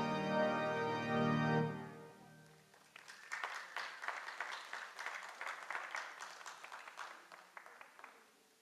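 Organ holding a final chord that is released about two seconds in and dies away, then the congregation applauding for about five seconds, thinning out near the end.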